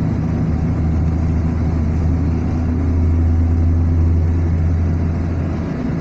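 Car engine and tyre noise heard from inside the cabin while driving on a highway: a steady low drone that swells slightly a few seconds in.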